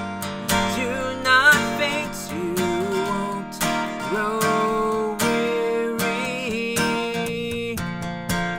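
Steel-string acoustic guitar strummed steadily in a car's cabin, with a voice singing long held notes over it without clear words.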